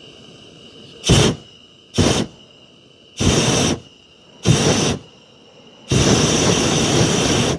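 Hot air balloon's propane burner fired in five blasts: two short ones, two of about half a second, and a last one of nearly two seconds.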